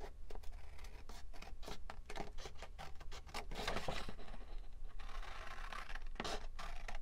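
Scissors cutting by hand through a large sheet of paper: a run of quick snips, with the paper rustling as it is moved between cuts.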